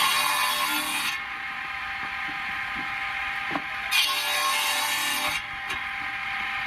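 Three-phase circular saw with a 2.2 kW induction motor, fed through a frequency converter, running steadily with a constant whine. Its blade cuts into wood twice: once for about the first second and again about four seconds in, each cut lasting a little over a second.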